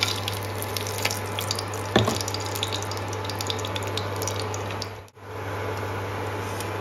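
Whole spices (cloves, cardamom, cinnamon and black pepper) sizzling in hot oil in a pan: a steady hiss with scattered small crackles and pops. There is one sharp knock about two seconds in, and the sound breaks off for a moment about five seconds in.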